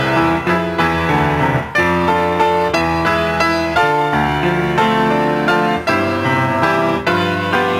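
Piano music: a slow melody over sustained chords and a steady bass line.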